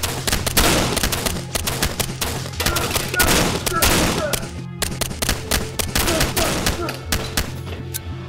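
Pistol gunfire in a film shootout: a fast volley of many shots, with a brief pause around the middle before the firing resumes. It plays over a film score with a pulsing bass line.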